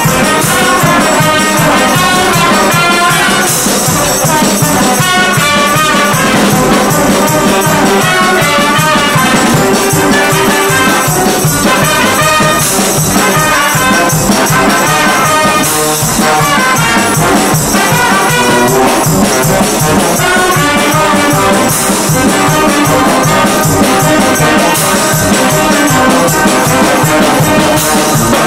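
Brass band of trumpets, saxophones and sousaphones playing a piece together, loud and steady.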